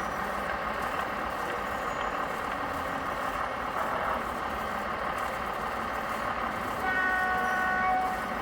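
Steady background noise, with a single horn toot held for about a second near the end, most likely from the sound module of a radio-controlled model truck.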